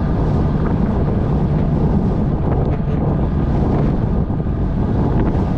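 Steady wind rumble on the camera microphone from a road bicycle riding at about 30 km/h.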